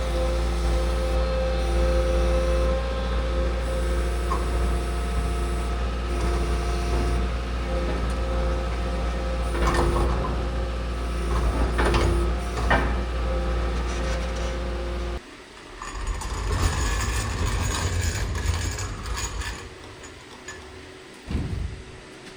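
A vehicle engine running steadily, with a few clunks about ten and twelve seconds in. About fifteen seconds in it cuts abruptly to quieter handling and rustling noises.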